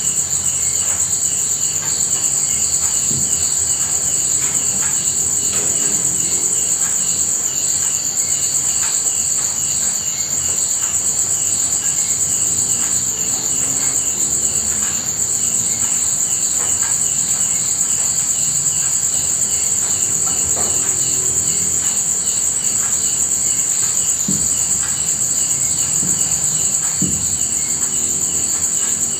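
Steady, loud chorus of night insects such as crickets: a continuous high shrill trill with a fine pulsing, and faint scattered taps underneath.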